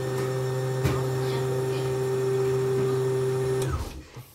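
Motor of a CNY portable embroidery machine spinning up and running steadily at one pitch, driving the bobbin winder, then slowing and stopping about three and a half seconds in; a single click about a second in.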